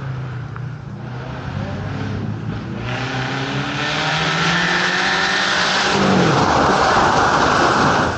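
Rally car at full speed on a dirt stage: the engine climbs in pitch through several upshifts as the car approaches, then drops in pitch as it passes close about six seconds in, with loud tyre and gravel noise. The sound cuts off sharply at the end.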